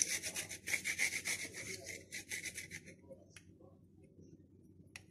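A garlic clove grated on a small metal hand grater: quick, even rasping strokes that stop about three seconds in, followed by a couple of faint taps.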